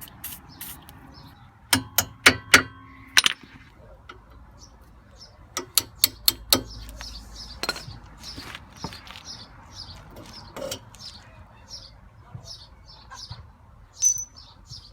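A hammer tapping out the bottom pin of a brake caliper, metal on metal. There is a quick run of ringing knocks about two seconds in, then scattered lighter knocks and clinks.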